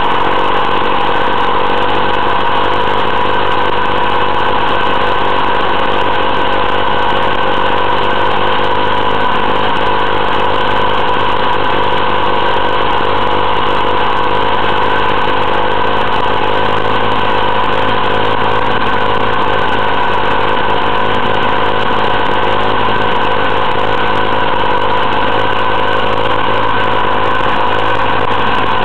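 Motostandard Super U6 motoculteur's 200 cc two-stroke engine running at a steady speed on its first start, its note even throughout.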